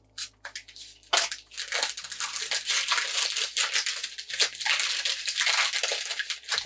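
Brown kraft paper crinkling and rustling as it is unfolded and handled to unwrap a candle. It starts with a few crackles and becomes continuous from about a second in.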